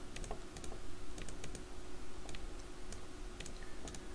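Computer keyboard typing: irregular short key clicks, over a faint steady hum.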